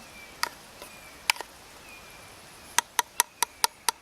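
Sharp metal taps of a utensil against a canteen cup: two single taps, then a quick run of about five a second near the end.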